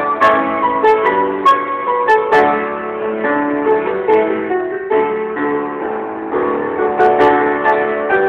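Upright piano played solo: a zeybek, the Turkish folk dance, in a piano arrangement. It goes in full chords, with struck accents in the first couple of seconds, a smoother held passage in the middle, and sharper accents again near the end.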